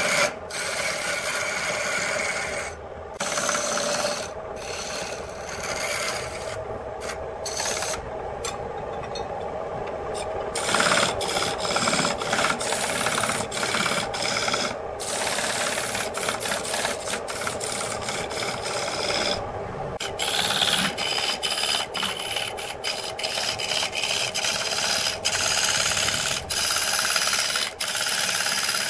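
A hand-held turning tool cutting a large wooden blank spinning on a wood lathe, making a continuous rough scraping that is broken by many short gaps.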